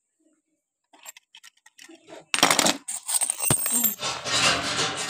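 Metal padlocks and keys being handled and picked up off a hard tiled floor: small clicks from about a second in, then louder clinking and scraping handling noise, with a sharp knock about three and a half seconds in.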